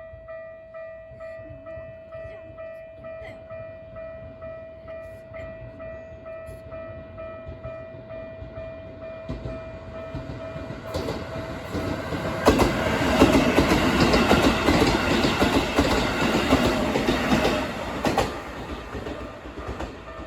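Japanese level crossing warning bell ringing in a steady repeating pattern of about two strikes a second. About halfway in, a Keikyu Daishi Line electric train comes up and passes over the crossing, its wheels clattering loudly on the rail joints for about five seconds before fading, with the bell still ringing once it has gone.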